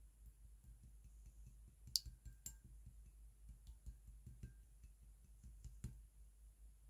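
Faint, scattered clicks and small pops of clear slime being handled by hand. The sharpest comes about two seconds in and a clear one near six seconds.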